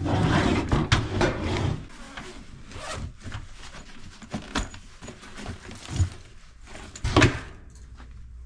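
Fabric rolling suitcase being handled: it is laid down flat, unzipped and opened, with rustling, zipper and fabric noise, and scattered knocks. The loudest knock comes about seven seconds in.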